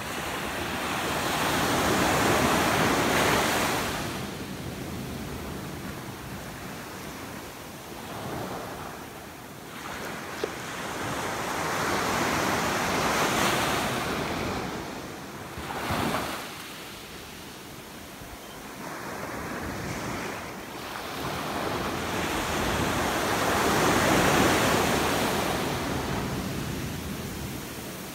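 Ocean surf breaking and washing up a sandy beach: several waves, each swelling and fading over a few seconds, with a brief sharp splash about sixteen seconds in.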